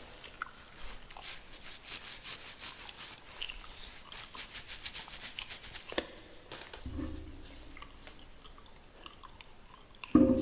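Fingernails scratching through a beard close to the microphone: rapid crisp strokes, densest over the first few seconds, then softer and sparser. A sudden louder noise comes near the end.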